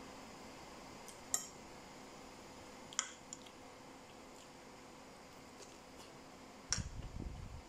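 Metal spoon and fork clinking against a ceramic bowl: three sharp clinks, about a second in, about three seconds in and near the end, the last one followed by a short low rumble of handling or chewing.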